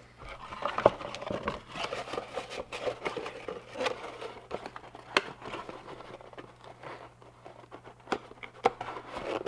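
Plastic lure blister packs and a cardboard box being handled and set down on a table: crinkling and rustling with scattered sharp clicks and taps.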